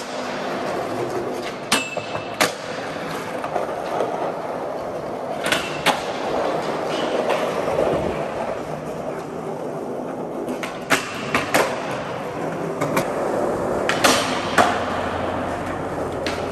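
Skateboard wheels rolling on a concrete parking-garage floor, with sharp clacks from the boards popping and landing, about nine of them scattered through.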